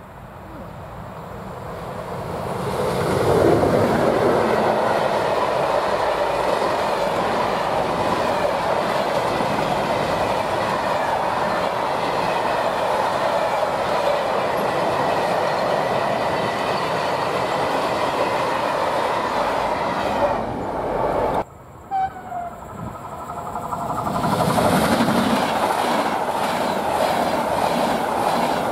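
An electric-hauled freight train of covered sliding-wall wagons draws near and rolls past, growing louder over the first few seconds and then running steadily. About three-quarters of the way through, the sound cuts off abruptly and a locomotive-hauled passenger train passes close by, its wheels clicking over the rail joints.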